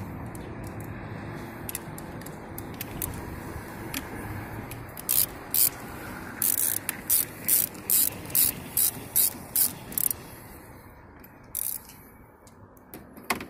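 Socket ratchet wrench working a bolt in a car's engine bay, its pawl clicking in quick bursts: a run of about a dozen strokes, two to three a second, starting about five seconds in, with a couple more strokes near the end. A steady low background noise runs underneath.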